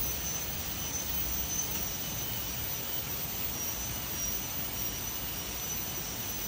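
Steady outdoor forest ambience: an even rushing noise with a continuous high-pitched insect drone over it and a low rumble underneath.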